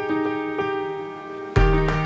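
Background music: electric piano notes ring and fade, then about one and a half seconds in a bass line and a steady beat come in.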